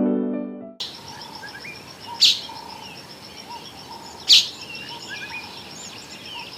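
A soft music chord ends within the first second. Then wild birds call: scattered small chirps over a steady high trill, with two loud, sharp calls about two seconds apart.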